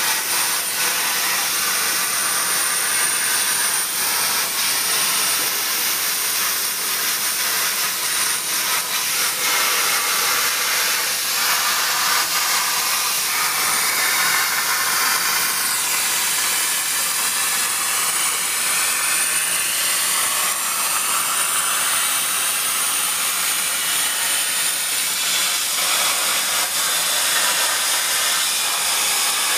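CNC plasma cutter torch cutting steel plate: a steady hiss with a thin high whine over it, and the whine drops out about five seconds before the end.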